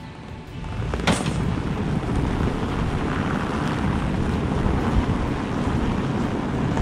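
A pickup truck's engine running at low speed as it slowly pushes another truck across snow, with wind buffeting the microphone. A sharp click about a second in.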